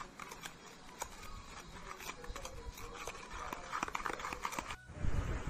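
A metal spoon stirring thick chocolate glaze in a plastic bowl, tapping and scraping against the bowl in small irregular clicks.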